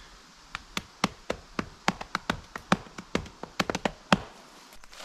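A quick, irregular series of sharp taps, about twenty of them, stopping just after four seconds in.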